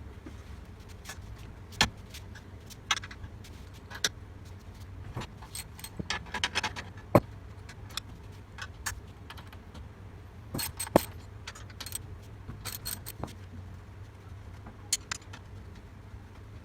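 Metal clinks and taps of spanners, nuts and bolts being worked on an old cylinder mower's steel frame during a teardown. Irregular sharp clicks throughout, with a loud knock about seven seconds in and a quick run of clinks around eleven seconds, over a low steady hum.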